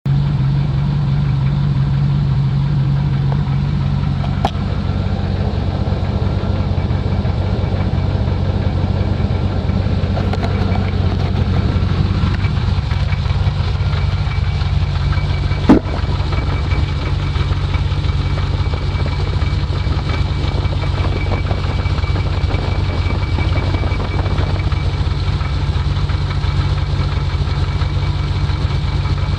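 V8 engine idling steadily, heard with the bonnet closed, with a slight clacking that the owner is documenting. A sharp click about halfway through stands out as the loudest moment.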